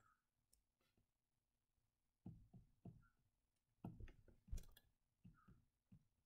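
Faint computer mouse clicks, about a dozen, in small groups of two or three, as numbers are keyed in on an on-screen calculator's buttons.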